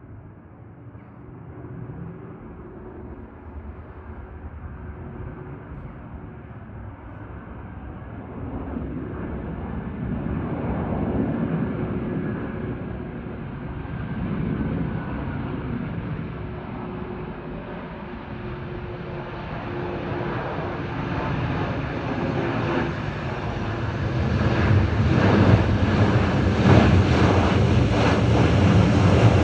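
Jet noise from a Boeing 737-800 with CFM56-7B turbofan engines on final approach. It grows steadily louder and brighter as the aircraft closes in: a low rumble with a steady engine tone, loudest near the end.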